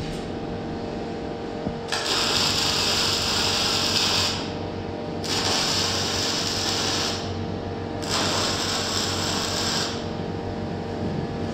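Electric arc welding on a steel narrowboat hull side: three crackling, buzzing weld runs of about two seconds each, with short pauses between them. A steady hum runs underneath.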